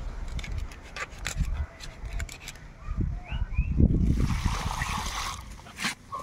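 A knife cracking and scraping through the hard shell of a large sea crab, a run of sharp clicks and snaps over a low rumble of wind on the microphone. About four seconds in comes a loud thump, then a second and a half of rushing, splashing noise.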